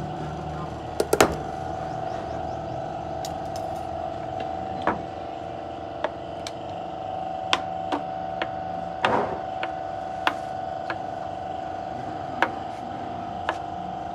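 A metal tin of Toyota TC CVT fluid being handled and its cap worked open: about a dozen short, sharp clicks and knocks, the loudest a quick cluster about a second in, over a steady hum.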